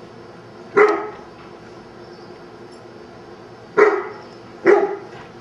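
A dog barking three short, single barks during play: one about a second in, then two close together near the end.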